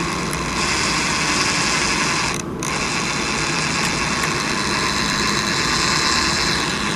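Cordless drill running slowly in reverse, its Micro Grabit extractor bit drilling out the head of a stripped servo horn screw: a steady motor whine that breaks off for a moment about two and a half seconds in, then picks up again.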